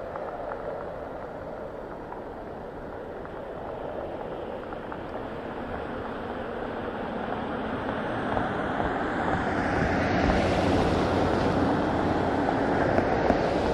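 Four CFM F108 turbofans of an RC-135S jet on a low fly-by, running steadily and growing louder as the aircraft approaches. A higher hiss fills in from about eight seconds in as it draws near.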